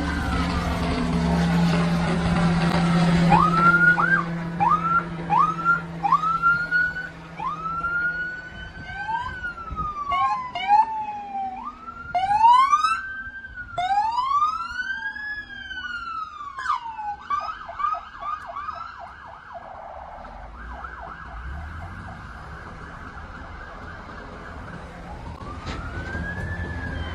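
Police sirens on passing patrol vehicles, two or more sounding at once: slow rising-and-falling wails and short quick yelps, switching to a fast warbling pattern in the second half. A steady engine hum runs under the sirens through the first several seconds.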